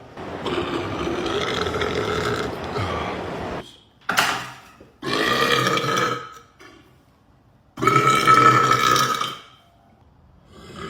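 A man burping four times in a row: a long drawn-out burp, a short one, a second longer one, and a long, loudest burp near the end.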